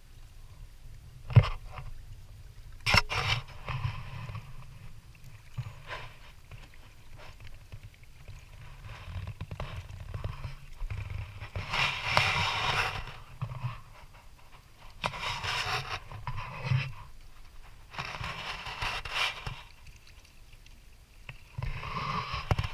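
Kayak paddle strokes splashing in the water every few seconds, with two sharp knocks about one and three seconds in, under a steady low rumble.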